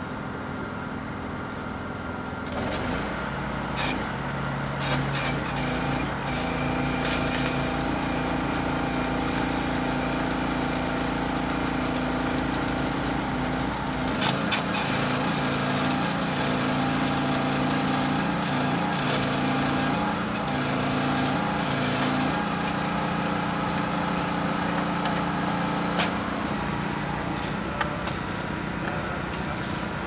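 A small engine running steadily, its pitch stepping up and down every few seconds as the load changes, with a few sharp clicks.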